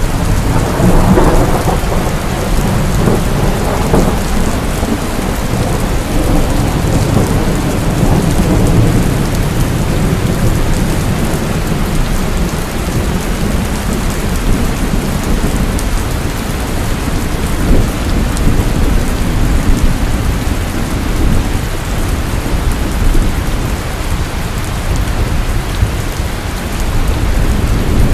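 Heavy rain pouring steadily, with thunder rumbling deep underneath. A thunder rumble swells up at the start and dies back over the first several seconds, and the low rumbling carries on.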